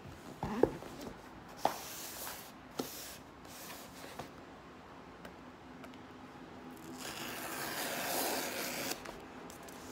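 Cardboard shipping box handled on a tabletop, with a few sharp knocks as it is turned and set down, then its tear strip ripped open along the box in one long tearing sound of about two seconds near the end.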